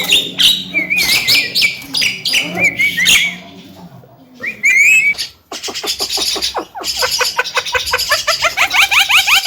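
Javan myna chattering: a run of varied whistled calls and squeaks, a short lull, then from about halfway a fast series of short rising notes, about five a second.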